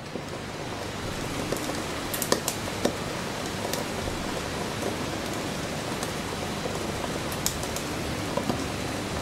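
Wilesco D24 toy steam engine hissing steam, with scattered sharp crackles and spits. The hiss grows over the first second, then holds steady.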